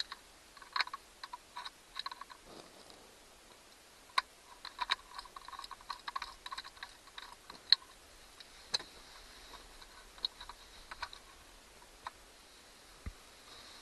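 Irregular small clicks and taps of screws, screwdriver and plastic housing being handled during disassembly of a car's LCD clock, some clicks with a short metallic ring.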